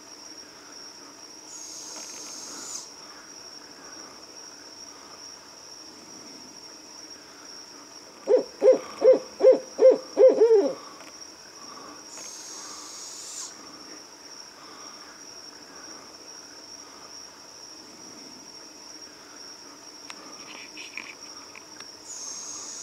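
Barred owl giving a quick run of about seven loud, evenly spaced hoots, about eight seconds in. Under it runs a steady high trill of night insects that swells briefly about every ten seconds.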